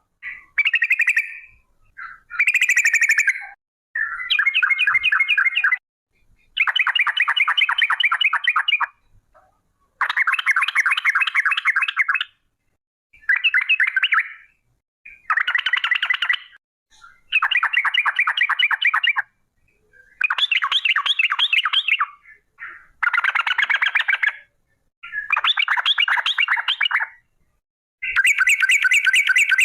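Yellow-vented bulbul (trucuk) singing its fast rattling 'ropel' song: about a dozen quick chattering phrases, each one to two seconds long, with brief pauses between them.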